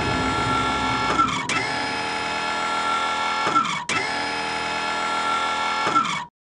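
Motorised whirring of a giant cartoon tank's cannon elevating. It comes in three runs of about two seconds, each winding down in pitch as it stops, and it cuts off abruptly near the end.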